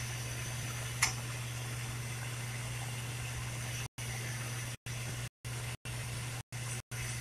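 Steady hiss of a lampworking bench torch flame over a low hum, with one sharp click about a second in. The sound cuts out for moments several times in the second half.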